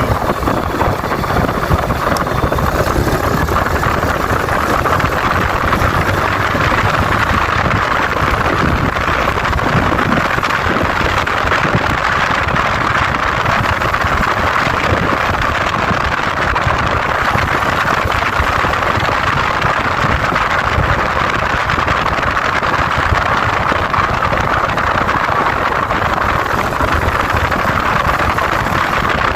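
Yamaha Vega New motorcycle's single-cylinder four-stroke engine running at a steady speed while riding, mixed with a steady rush of wind and road noise.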